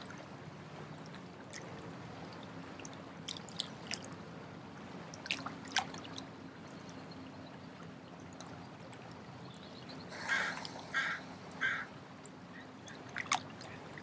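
Faint marina ambience: water lapping and trickling around the docks under a low steady hum, with scattered short chirps and a bird calling three times in quick succession about ten seconds in.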